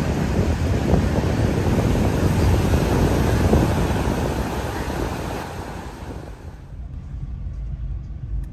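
Wind buffeting the microphone over the rush of waves breaking on a sandy beach. The noise thins out and drops near the end, leaving a low rumble.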